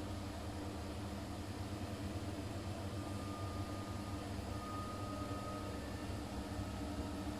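Siemens iQ500 front-loading washing machine running, a steady low mechanical hum with a faint whine partway through.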